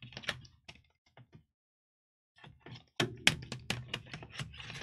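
Irregular small, sharp clicks and taps: a few scattered ones, a short pause, then a quick dense run of them from about three seconds in.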